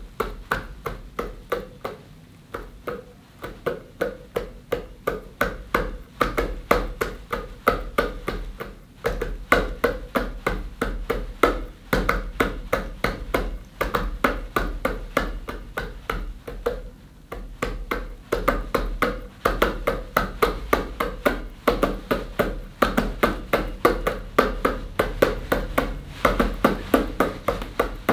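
Background music with a quick, steady beat of clicking hits, about four a second, over plucked notes and a low bass line.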